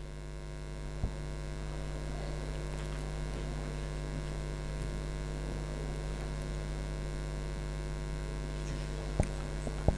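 Steady electrical mains hum through the microphone and sound system, with a few faint clicks about a second in and twice near the end.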